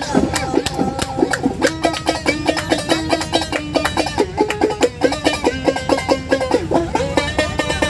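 A plucked string instrument played fast: a quick, steady run of picked notes of a melody, with repeated notes on the same pitch.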